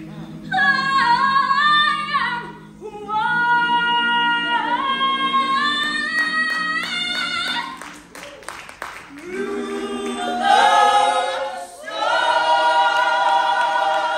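Vocal group singing a cappella in harmony: a high solo voice sings gliding phrases over a held low chord, then after a short break about eight seconds in the full group comes in on sustained chords.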